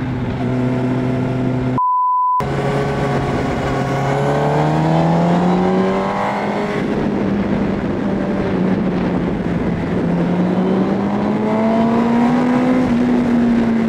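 2004 Yamaha R1's inline-four engine running under the rider, its pitch climbing as it pulls from about four to six seconds in, holding, then climbing again near the end. About two seconds in, a short censor bleep replaces the sound.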